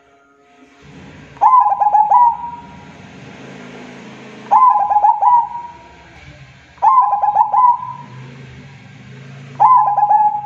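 Zebra dove (perkutut) cooing: four phrases, each a quick stuttering run of coos ending on a held note, spaced two to three seconds apart.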